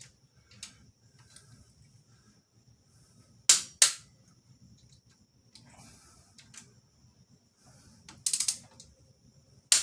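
Click-type torque wrench tightening a rocker arm bolt on a Jeep 4.0 engine, giving a sharp double click about three and a half seconds in as it reaches its 24 ft-lb setting. A quick run of clicks follows near the end, with faint small tool ticks in between.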